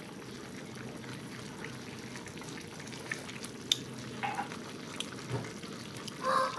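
Pan of vegetables and tofu braising in soy sauce, simmering with a steady bubbling hiss, with a few light clicks partway through.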